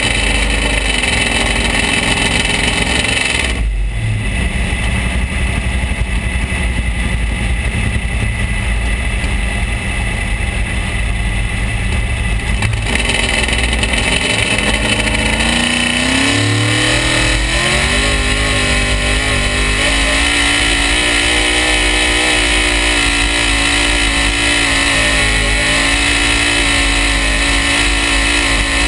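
Pulling truck's engine running close up, first a deep rumble at low revs. About halfway through it revs up and then holds high revs under load as the truck digs in and kicks up dust.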